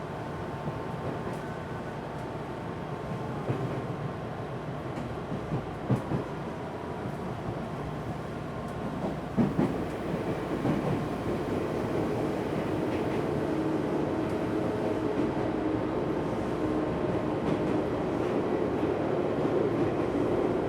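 Interior running noise of an Odakyu 1000 series electric train car with Mitsubishi GTO-VVVF traction equipment, rolling along with the air conditioning running. A few sharp wheel knocks come in the first half. From about halfway, steady hum tones get louder.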